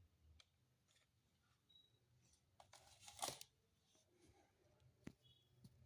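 Near silence with scattered faint clicks, a short scraping rustle about three seconds in, and a sharp click about five seconds in.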